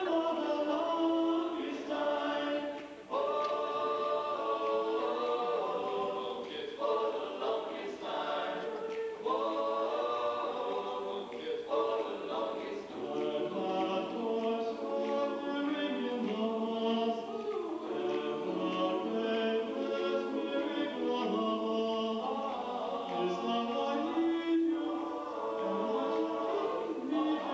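High school men's choir singing a cappella in close harmony, with a lead singer on a hand microphone in front of the group.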